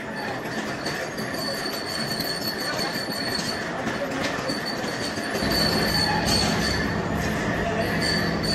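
Old W&B vertical turret lathe cutting metal: a high, steady whine from the cut that breaks off briefly and comes back, over dense machining noise. A deeper hum joins about five and a half seconds in.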